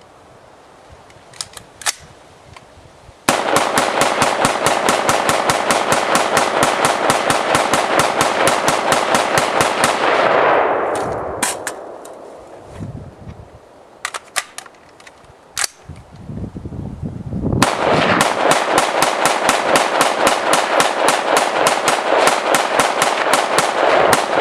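Long strings of rapid sharp bangs, many a second, in the manner of automatic fire: a few single pops, then a dense run that tails off about ten seconds in, a few stray pops, and a second dense run starting near eighteen seconds.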